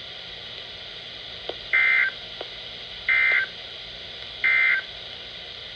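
Emergency Alert System end-of-message code: three short bursts of two-tone digital SAME data, about 1.3 seconds apart, that mark the close of the weather warning broadcast.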